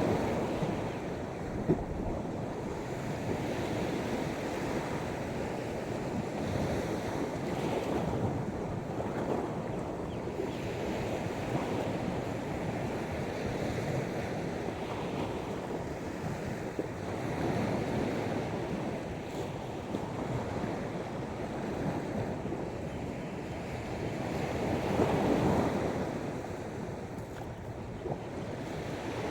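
Sea waves washing onto a beach, a continuous surf noise that swells and subsides every few seconds, with a bigger surge near the end, and wind buffeting the microphone.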